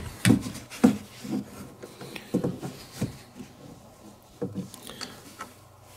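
A boat's removable rear navigation light pole being handled and slid into a storage cavity: a series of irregular knocks and clunks, about eight over the few seconds, with light scraping of the pole between them.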